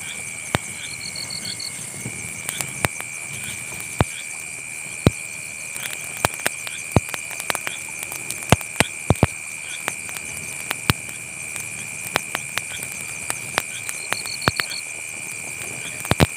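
Wood campfire crackling, with irregular sharp pops, over a steady high-pitched chorus of night insects. A short pulsed insect trill comes twice, about a second in and near the end.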